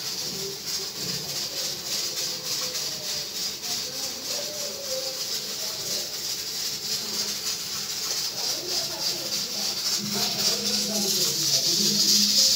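Background music dominated by a steady shaker-like hiss, with faint wavering melody lines underneath, growing louder near the end.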